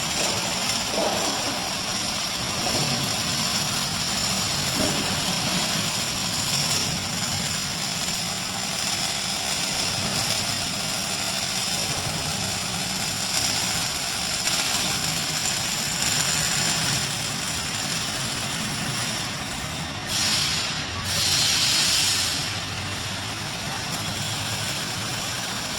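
Robotic MIG welding cell at work: a steady hiss and crackle of the welding arc, with two louder hissing surges near the end.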